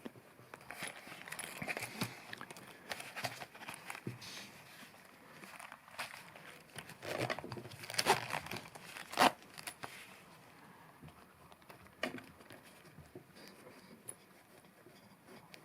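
A bar of soap rubbed along a wallet's zipper teeth to lubricate a sticking zipper: irregular scraping and rustling with a few sharper clicks, busiest near the middle and fading over the last few seconds.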